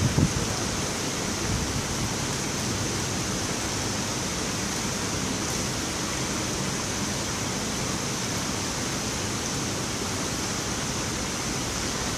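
Steady, even hiss of a large indoor diving-pool hall, with no distinct events.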